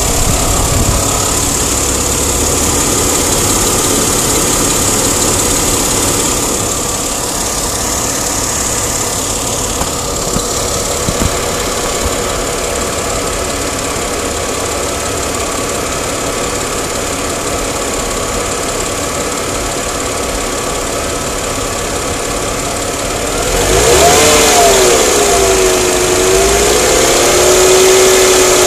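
Chrysler Crossfire's 3.2-litre V6 running with a ticking that the owner cannot explain. Near the end the engine speed picks up and the pitch rises and wavers.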